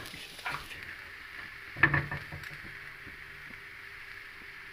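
Vegetables and chicken stuffing being stirred in a pan: a few sharp knocks of the spoon against the pan, the loudest about two seconds in, over a faint steady frying hiss.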